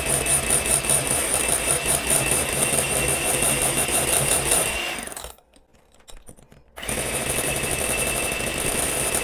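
Electric hand mixer running at steady speed with a high motor whine, its beaters whipping cream with powdered sugar and vanilla into chantilly. It cuts out for about a second and a half around five seconds in, then runs on.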